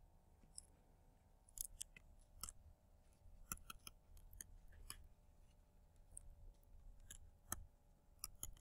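Faint, irregular clicks and taps of a stylus writing on a tablet screen, over a low steady hum.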